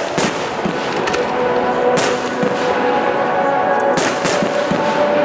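Aerial firework shells bursting with sharp bangs, the loudest about two and four seconds in, over music played for the display.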